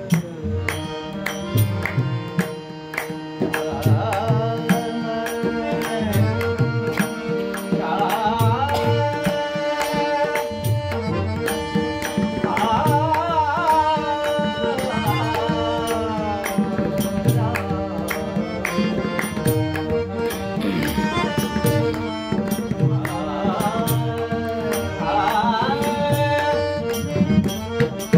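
Marathi devotional bhajan. A male classical voice sings long ornamented phrases over held accompanying notes, while a pakhwaj (mridang) drum plays a rhythmic pattern of deep and sharp strokes under regular high ticks.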